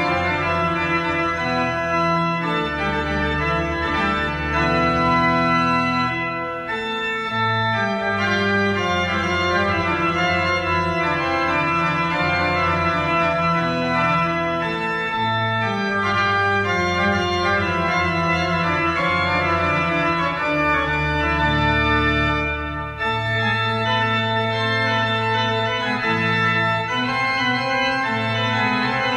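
Pipe organ built by Josef Aigner in 1852 playing a medieval estampie, with many held notes sounding together over sustained bass notes that change every second or two.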